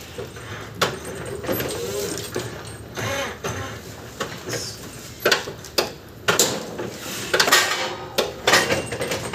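Electric reach truck working with its mast raised in a warehouse aisle: a run of sharp metallic clanks and knocks, bunched closer together in the second half, over a steady mechanical background.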